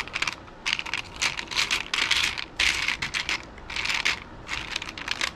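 Small resin strawberry and cherry charms clicking and clattering against each other and a plastic basket as a hand stirs through a pile of them, in repeated clusters of rapid clicks with short pauses between.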